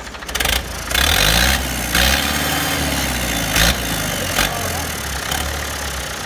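Yanmar US45 tractor's diesel engine running just after a restart, its pitch rising and falling once as it is revved, with a few short louder surges in the first few seconds.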